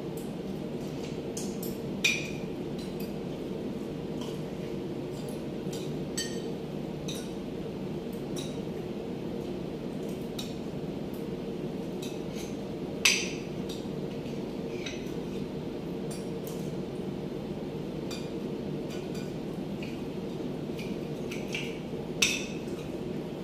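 Spoons and forks clinking and scraping against plates as two people eat, with a few sharper clinks, the loudest about 13 seconds in, over a steady low hum.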